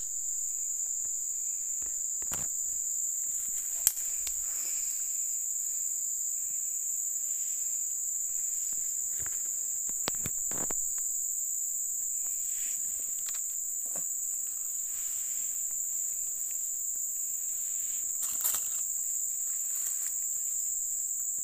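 Steady high-pitched insect chorus from the surrounding forest, with scattered rustles and clicks of dry leaves and soil being handled as a snare is covered. One sharp click stands out about four seconds in.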